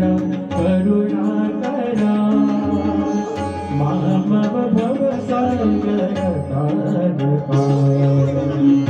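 A man singing through a microphone and sound system, accompanied by tabla, with long held notes and a steady run of drum strokes.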